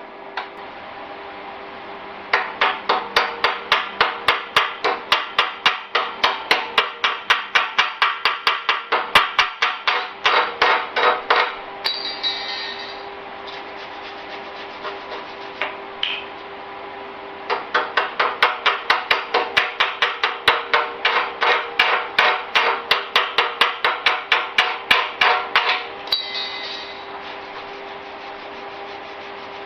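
Chipping hammer knocking slag off fresh stick welds on steel, in rapid strikes about four a second. The strikes come in two long runs with a pause between them, over the steady hum of a shop fan.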